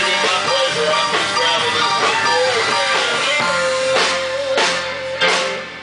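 Live rock band playing: two electric guitars and a drum kit, with a lead line bending in pitch, and cymbal crashes in the last couple of seconds.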